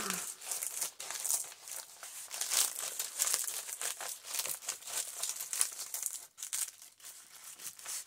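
Dry, crunchy autumn leaves crackling and crinkling under hands pressing them flat onto a glued paper page.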